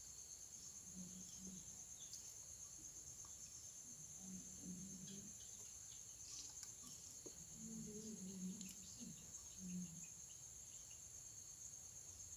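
Faint, steady, high-pitched insect trilling throughout, with a faint low murmur of distant voices a few times.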